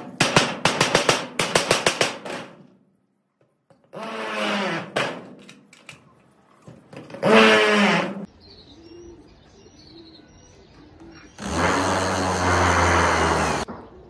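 Cordless drill driving a screw through a corrugated metal roofing sheet, running steadily for about two seconds near the end. Before that, a rapid clatter of clicks, a few short pitched cries, and faint bird chirps.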